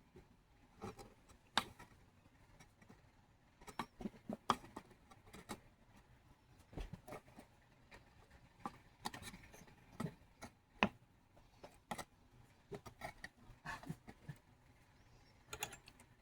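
Irregular light clicks and taps of small hand tools and parts being handled at a jeweler's workbench, a few sharper knocks among them.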